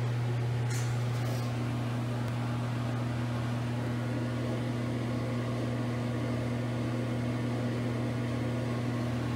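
Steady low hum of a small room's background, with a brief rustle about a second in; the hand dryer itself is not running.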